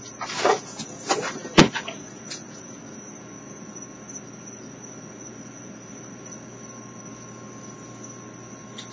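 Raccoons feeding from a cardboard box and plastic dishes of dry dog food: a few loud scuffling rustles and one sharp knock in the first two seconds. Under and after them runs a steady high cricket trill over a low hum.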